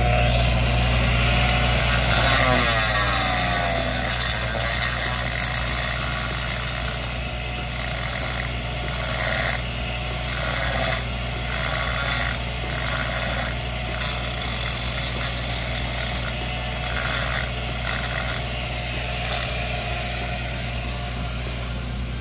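Gas-shielded flux-cored arc welding on steel pipe: the arc strikes abruptly and then crackles and hisses steadily, over the steady low drone of the engine-driven welder.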